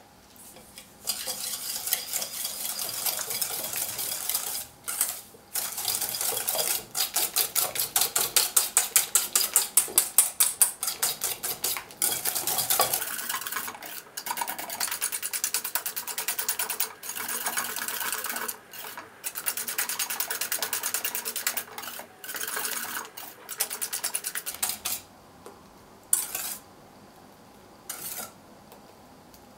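Wire balloon whisk beating eggs and sugar by hand in a stainless steel bowl: the wires clink and scrape against the metal in fast, even strokes, about four a second. The strokes stop briefly a few times and thin out to a few near the end.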